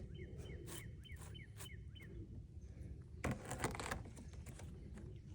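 A bird giving a quick run of short, falling chirps, about three a second, that stops about two seconds in. About three seconds in there is a brief burst of rustling or scraping.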